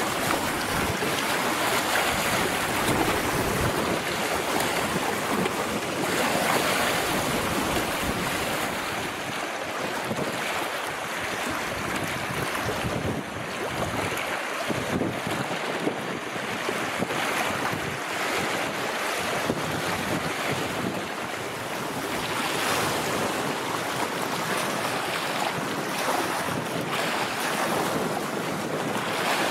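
Wind-driven lake waves splashing against shore rocks, a steady rushing wash that swells and eases, with wind buffeting the microphone.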